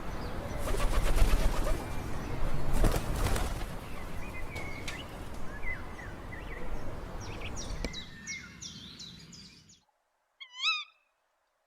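Woodland sound: birds chirping over a loud rustling, rumbling noise that stops about ten seconds in, followed by one short pitched animal call near the end.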